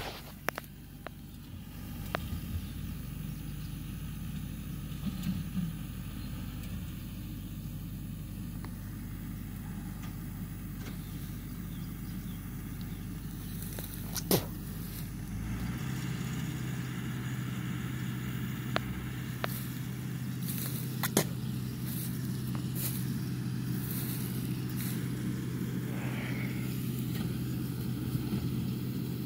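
A vehicle engine running steadily, its low hum stepping up to a higher steady pitch about halfway through as it speeds up. There are a few sharp clicks here and there.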